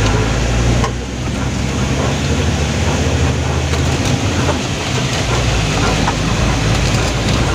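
Truck's diesel engine running as it drives, heard from inside the cab, a low drone under road noise and light rattling; the engine drone eases a little about halfway through.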